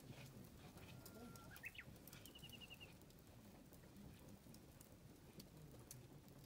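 Near silence: faint scattered crackling and ticking under a low murmur, with a short rising chirp and a quick run of about six high pips about two seconds in.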